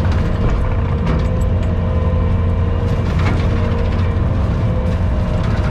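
Skid steer engine and its bush hog rotary cutter running steadily while mowing brush: a loud, even low hum with a steady whine on top.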